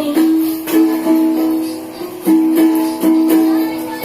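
Ukulele strummed in chords, a steady rhythmic strumming pattern between sung lines, with no voice.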